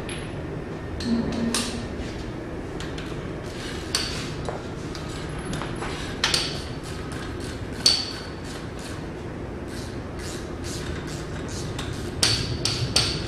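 Metal jack being worked under a motorcycle to lift the rear wheel: irregular metallic clicks and knocks. A few louder clanks ring briefly, the loudest about eight seconds in.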